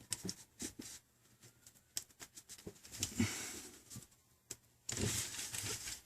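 Shattered tablet touch-screen glass being pried away from its adhesive: scattered small clicks and crackles, with two short stretches of scraping about three seconds in and near the end.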